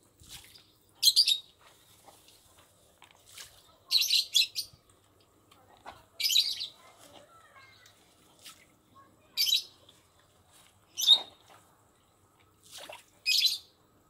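Catfish snapping up floating feed pellets at the water surface: short, sharp splashy slurps every second or two, at irregular intervals, with a few in a quick cluster about four seconds in.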